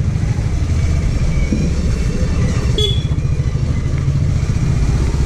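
Hero Glamour Xtec 125 motorcycle's single-cylinder engine running steadily at low speed, with a short, sharp high-pitched sound about three seconds in.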